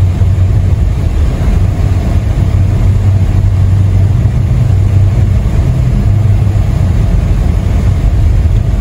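Steady low rumble of a car driving on a snow-covered road, heard from inside the cabin: engine and tyre noise with no break.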